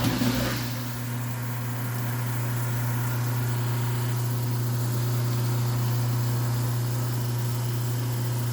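Garbage disposal motor switched on, spinning up and then running with a steady, even hum. It is the sign that the newly wired switch works: the sound of success.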